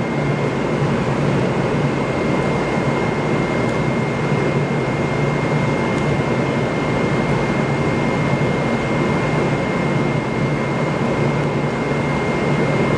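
Steady mechanical hum and rushing noise, like room ventilation, with a constant low drone and a thin steady high tone over it.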